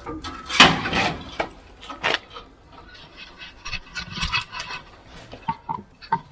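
Workshop handling noises: a brief scrape about half a second in, a sharp knock near two seconds, then a run of small clicks and rattles as metal parts are moved about.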